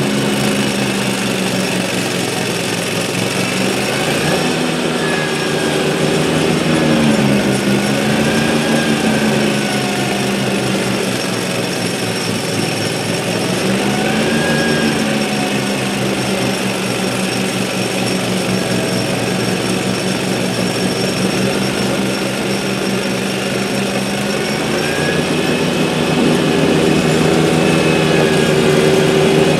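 Exmark zero-turn mower's engine running hard, driving a Toro 52-inch snowblower attachment that is throwing snow. The engine pitch sags and recovers a few times under the load, and rises near the end.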